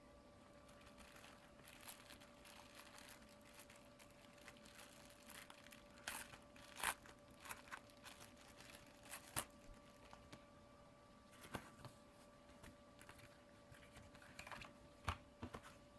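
Faint crinkling and rustling of a clear plastic bag being handled and opened to take out a silicone phone case, in scattered short crackles and small taps. A faint steady hum runs underneath.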